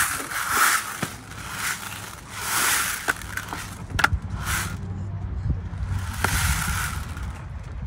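Playground spinner panel, a clear dome filled with beads, being turned by hand: the beads rattle and rush around inside in repeated swells, with a few sharp clicks.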